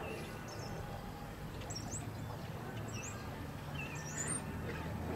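Small birds chirping: a few short, high chirps a second or so apart, over a faint steady outdoor background.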